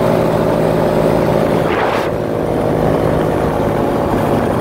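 Paramotor engine and propeller running at a steady flying throttle, a continuous drone.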